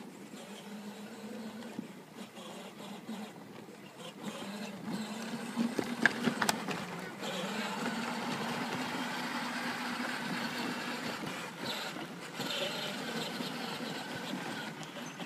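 Battery-powered kids' ride-on toy ATV driving over grass and dirt: the steady whine of its electric drive motor and gearbox, growing louder about five seconds in as it comes close. A few sharp clicks or knocks about six seconds in.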